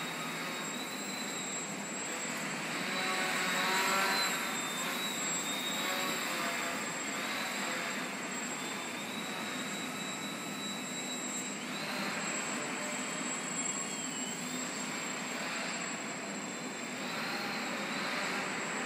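Electric motor and propeller of a 150 g depron indoor Yak-54 aerobatic model plane, a whine that rises and falls in pitch as the throttle is worked while it hangs on its propeller and flies passes. It swells louder about four seconds in and again several times later.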